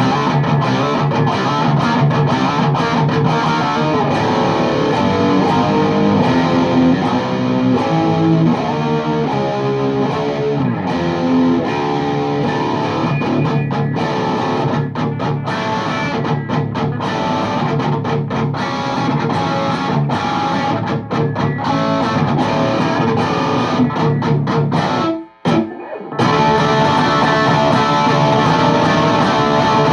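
High-gain distorted electric guitar riffing through a VHT Deliverance D60 valve amp with KT88 power valves, played on a Les Paul Custom into a 4x12 cabinet with Vintage 30 speakers. About 25 seconds in the playing stops for about a second, then starts again.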